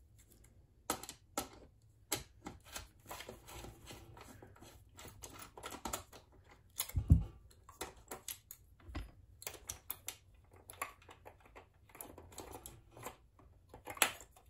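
Scattered small clicks and taps of a screwdriver and fingers working the plastic and metal parts inside an opened Brother sewing machine, with a dull thump about seven seconds in.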